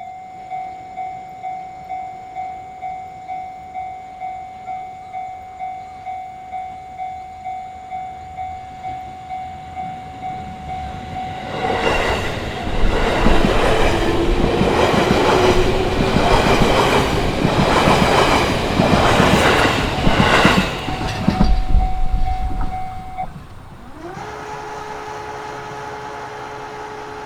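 Japanese level-crossing warning bell ringing its repeated kan-kan tone, about two strikes a second. About twelve seconds in, an electric commuter train on the JR Itsukaichi Line passes through the crossing, its wheels clacking over the rail joints for about nine seconds, the loudest sound here. The bell is heard again briefly after the train and then stops.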